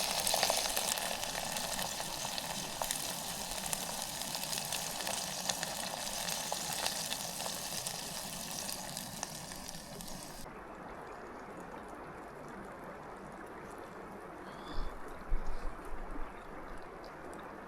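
Food frying and sizzling in a pan, a dense crackle that cuts off abruptly about ten seconds in. A faint steady hiss follows, with a few low thumps near the end.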